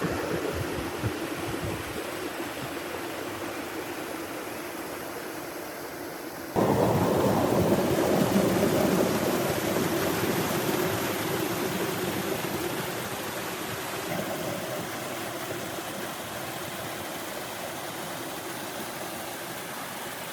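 Water flowing steadily with a rushing sound. It turns suddenly louder about six and a half seconds in, then slowly eases.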